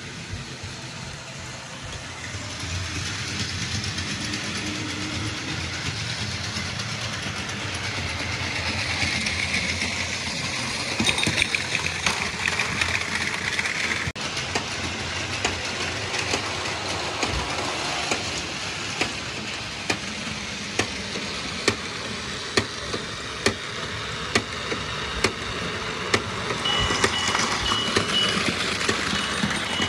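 Battery-powered Plarail toy trains running on plastic track: a steady motor whir with a train of sharp clicks that becomes regular, roughly one every half second or so, in the second half.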